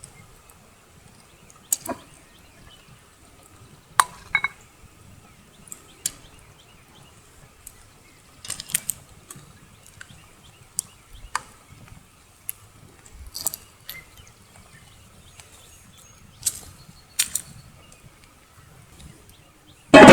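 Metal cooking utensils clinking and tapping against a pan at irregular intervals, some strikes ringing briefly, with one loud clatter at the very end.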